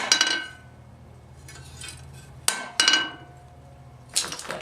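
Hand hammer striking steel on an anvil in short pairs of blows, each blow leaving a brief metallic ring, with a faint steady low hum underneath.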